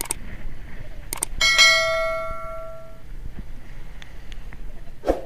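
Subscribe-button sound effect: a couple of quick mouse clicks, then a bright bell ding that rings out and fades over about a second and a half.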